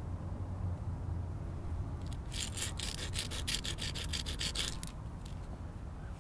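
Stone scraped against stone in a fast run of about twenty short strokes, some eight a second. The strokes start about two seconds in and stop about a second before the end.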